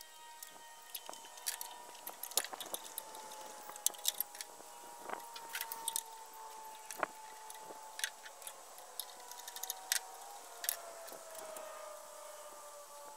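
Faint, irregular metallic clicks and taps of a hand wrench working the hex bolts on a radial arm saw's motor mount. Under them is a faint steady hum that slowly drops in pitch.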